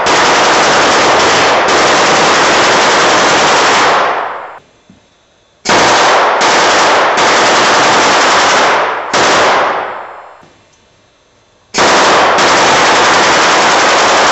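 Gas-fired, 12-volt DC powered .50-calibre machine gun prop firing long bursts. There are three bursts of several seconds each, the first already under way, with pauses of about a second and a half between them.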